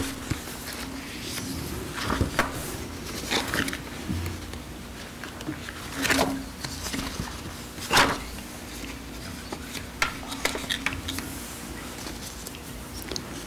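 Quiet meeting-room tone with a steady low hum, broken by scattered light knocks and rustles of papers being handled at a podium microphone; the loudest knocks come about six and eight seconds in.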